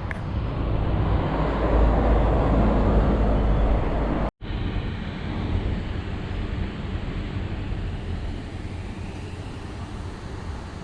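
Wind rumbling on the microphone over steady road noise. The sound cuts out for an instant about four seconds in, then carries on a little quieter.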